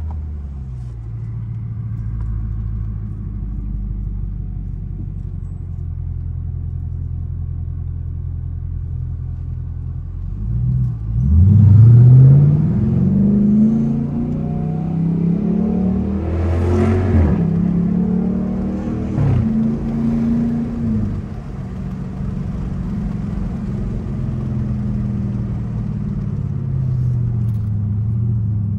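Straight-piped exhaust of a 2021 Dodge Durango R/T's 5.7-litre HEMI V8, heard from inside the cabin. It drones steadily at cruise, then about 11 seconds in opens up under hard acceleration, the pitch rising through a couple of gear changes. It settles back to a steady cruising drone and eases off near the end.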